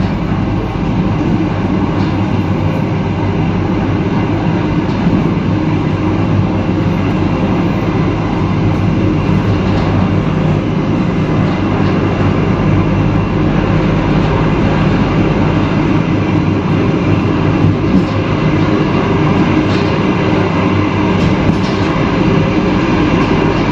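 Argo Cheribon passenger train running on the track: a steady rumble of the running train with a constant low hum.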